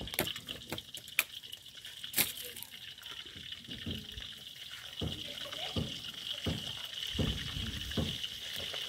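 Coconut cooking oil heating in a black metal wok over a wood fire, hissing steadily, with a few sharp clicks in the first two seconds. From about five seconds in, a wooden spoon scrapes around the pan about once a second, spreading the oil.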